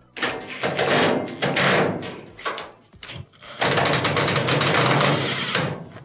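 Cordless drill driving two screws into a dryer's sheet-metal frame bracket: two runs of the motor, each about two seconds long, the second starting about three and a half seconds in.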